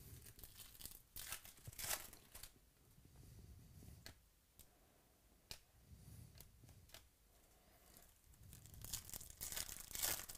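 Foil wrapper of a Topps Chrome baseball card pack crinkling and tearing open: a short burst about a second in and a longer, louder one near the end, with faint clicks of cards being handled between.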